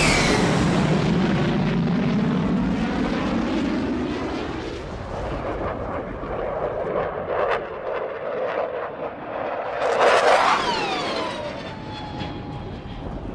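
Military fighter jets flying past: at the start a jet's whine falls steeply in pitch as it goes by, leaving a fading rumble, and about ten seconds in a second jet passes, louder, its whine again falling in pitch as it recedes. A single sharp crack comes between the two passes.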